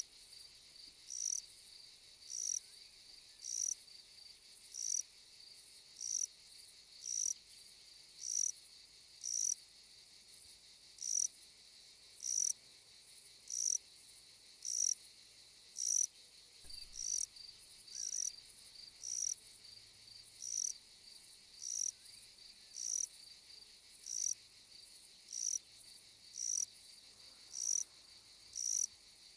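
Insect stridulation: a short, high-pitched chirp repeating very evenly about every 1.2 seconds, over a steady high-pitched hiss.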